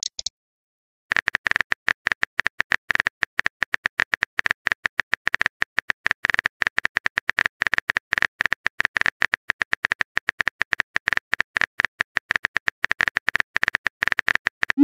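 Rapid on-screen keyboard typing clicks: a quick, uneven stream of short taps, each with a light ringing tick, starting about a second in and running without a break. The tail of a short message chime is heard at the start.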